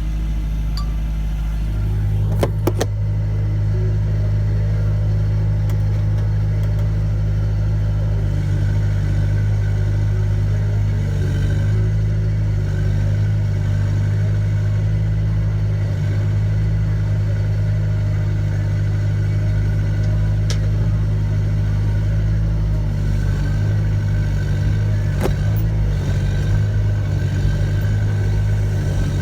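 Volvo ECR88 compact excavator's diesel engine running steadily under load, its note stepping up about two seconds in, with a few sharp clanks as the machine moves on its steel tracks.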